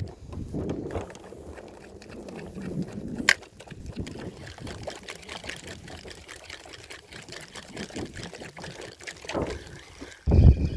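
Water trickling and splashing, with a single sharp knock about three seconds in. Near the end a sudden loud low rumble of wind on the microphone sets in.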